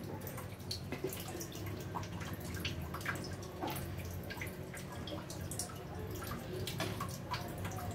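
Serving spoon scooping cooked rice out of a clay pot and dropping it into a clay dish: scattered light taps and scrapes at irregular intervals, over a low steady hum.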